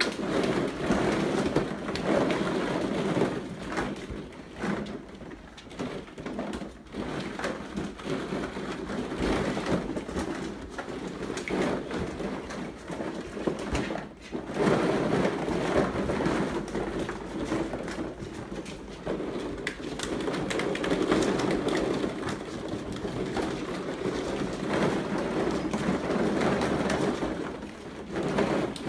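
Plastic ball-pit balls rustling and clattering as golden retriever puppies clamber through them, with soft low cooing sounds mixed in.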